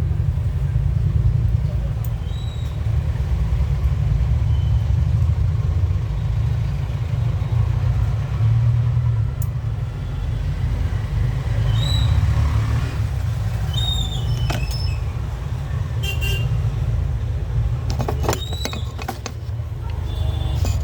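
Steady low rumble in the background, with a few short high chirps and a brief run of clicks near the end.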